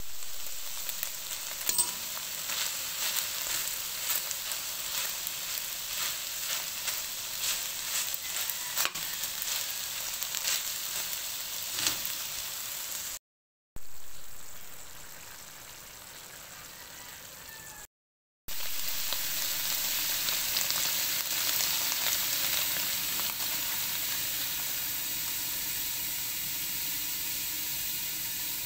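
Pork pieces frying in a pan, sizzling steadily, with scattered sharp pops and crackles in the first half. The sizzle breaks off twice for a moment.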